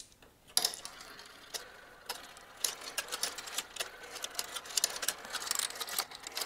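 Several marbles rolling and clattering down a miniature brick-built plastic marble run, swirling in its funnels and clicking along the track pieces: a steady rattle of many small clicks that starts about half a second in.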